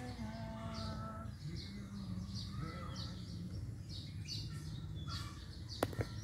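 Birds chirping over and over, short high chirps about two to three a second. A single sharp click sounds near the end.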